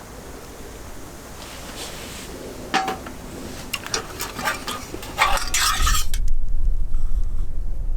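Metal utensils and dishes clinking and knocking, over a steady hiss. About six seconds in the clinks stop and a loud low rumble takes over.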